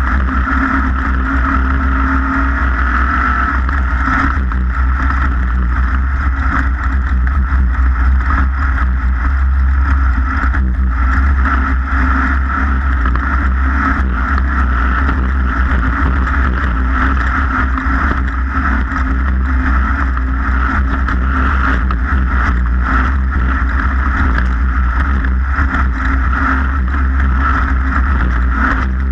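A racing vehicle's engine running steadily at speed, under a heavy low rumble, with no letting up.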